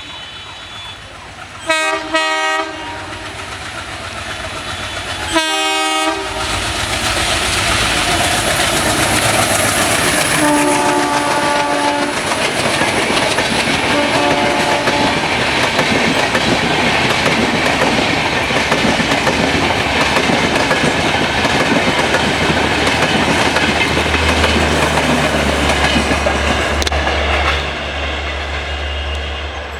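Indian Railways train horn sounding two short, loud blasts, then a train passing at speed with a loud, steady rush and wheel clatter for about twenty seconds. Two quieter, lower horn notes sound partway through. The noise drops off near the end.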